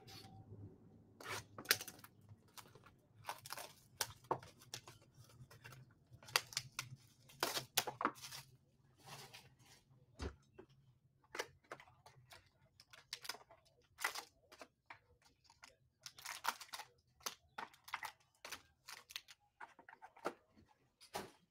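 Panini Spectra football card hobby box being torn open and its foil card packs pulled out and handled: faint, irregular short tearing and crinkling noises.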